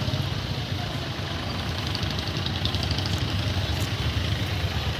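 A motor vehicle engine idling close by: a steady low rumble.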